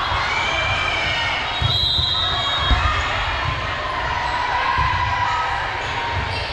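Busy volleyball gym: repeated thuds of volleyballs being hit and bouncing on the court, the sharpest about two-thirds of a second before the middle, under a steady mix of crowd voices.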